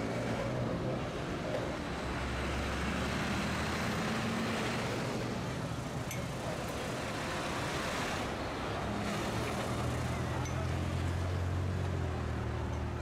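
Heavy MAN truck's diesel engine running low as the expedition motorhome built on it drives slowly past in city traffic, with the engine note strengthening in the second half over a steady background of traffic and tyre noise.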